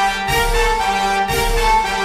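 Orchestral background music with brass and a low drum hit about once a second.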